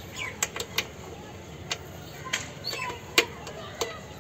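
Caged parakeets at a seed bowl: about seven sharp clicks, scattered and irregular, the loudest a little after three seconds in, with a few faint short chirps.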